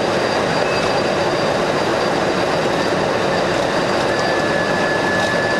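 Steady, loud road and engine noise from a police car driving during a pursuit, with a steady high tone coming in about four seconds in.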